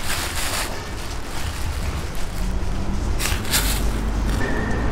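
Food-stall kitchen noise: a steady low rumble with short bursts of rustling and hissing near the start and about three seconds in, as plastic bags of boiled offal are handled and a steaming sundae pot is opened.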